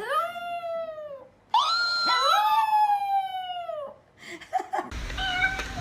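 A pet animal's long, drawn-out cries: three calls that rise briefly and then slide down in pitch, the second and third overlapping. About five seconds in, it cuts to a noisier room with a short, steady call.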